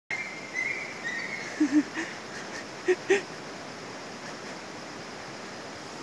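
A dog whining in short, high-pitched cries: a quick double cry about a second and a half in, and another pair about three seconds in.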